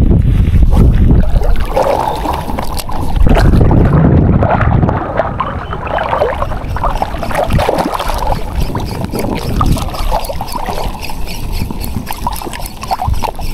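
Wind buffeting the microphone over sea water sloshing and splashing, with scattered knocks and rattles throughout.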